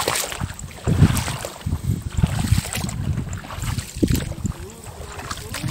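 Footsteps wading through shallow muddy floodwater, sloshing about twice a second.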